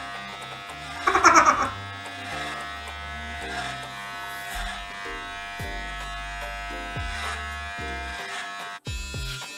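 Electric hair clippers buzzing steadily while cutting hair, over background music with a changing bass line. A short, loud voice sounds about a second in, and the sound cuts off abruptly near the end.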